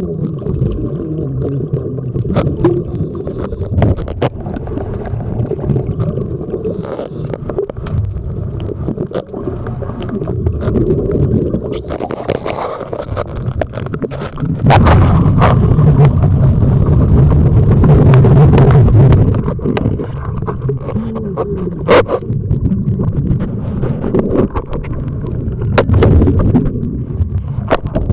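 A diver's breathing heard underwater: a long rush of exhaled bubbles about halfway through and a shorter one near the end, over a low churning rumble with scattered sharp knocks and scrapes.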